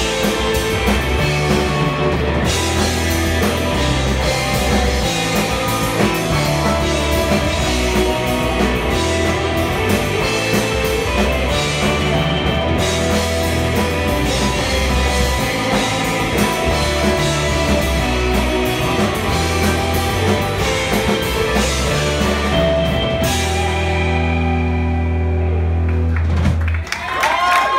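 Live instrumental surf rock band, with electric guitars, bass and drums, playing the closing section of a song. About 23 seconds in the drums and cymbals stop and a final low chord is held, ringing out for about three seconds. The audience starts cheering right at the end.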